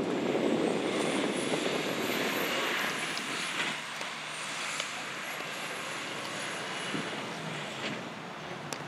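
Hi-rail crane service truck driving away, its engine and tyre noise fading as it goes, with a faint high whine rising and falling in pitch.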